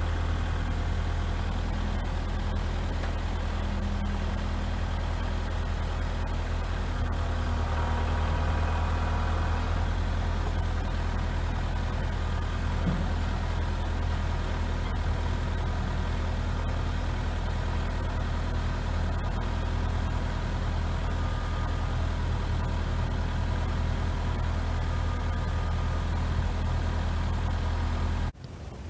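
An engine idling steadily, with an even low hum. It cuts off abruptly near the end.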